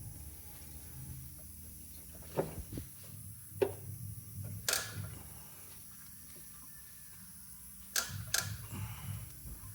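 Hand tools clicking and knocking against the engine while the alternator is unbolted: about half a dozen short, sharp clicks, spaced irregularly over a faint steady hum.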